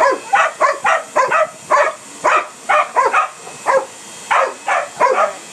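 Dog barking at a vacuum cleaner in a quick, steady run of short barks, about three a second.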